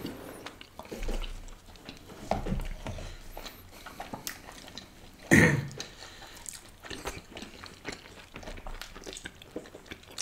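Close-up chewing and biting sounds of people eating by hand, with many small mouth clicks and smacks, and one louder short sound about five seconds in.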